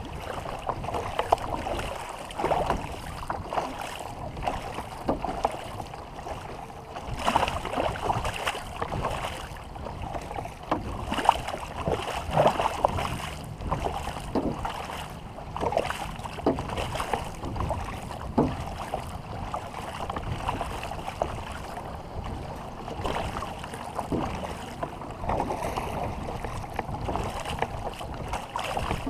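Paddles splashing and water lapping around a war canoe, in irregular splashes rather than a steady stroke rhythm, over a low rumble of wind on the microphone.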